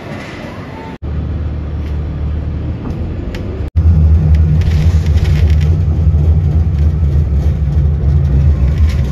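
Steady low rumble of a moving road vehicle heard from inside its cabin, engine and road noise. It breaks off briefly about a second in and again a little under four seconds in, and is much louder after the second break.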